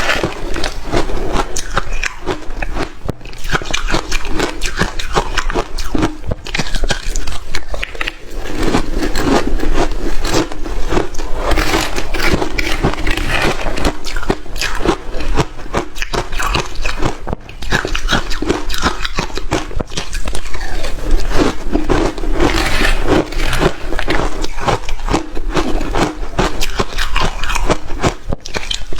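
Close-miked crunching of hard shaved ice being bitten and chewed: a dense, loud run of crisp cracks and crackles that hardly lets up.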